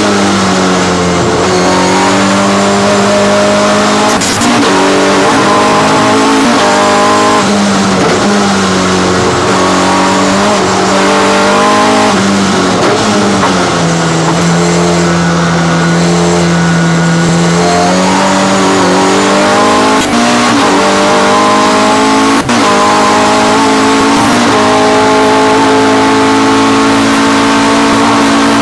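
Race car engine heard from inside the cockpit under racing, its revs repeatedly climbing and then dropping, with a steadier, lower-pitched stretch about halfway through.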